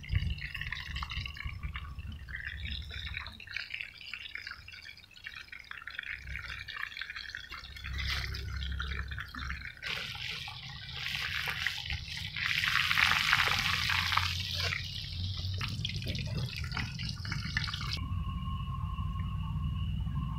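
Chicken pieces deep-frying in hot oil in an iron kadai, the oil sizzling and crackling steadily over a low rumble. From about halfway through the sizzle grows louder and brighter as more pieces fry.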